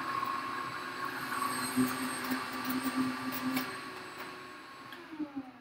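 A small electric motor whirring at a steady pitch, growing fainter and then winding down with a falling pitch near the end, with a few light clicks.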